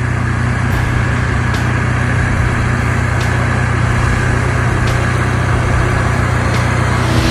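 Heavy machine's diesel engine running steadily at an even speed, a constant low drone with no revving.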